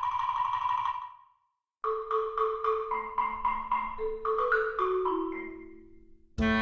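Background music: a held chord, a brief break of silence, then a run of quick mallet-like notes over held lower tones that fades away.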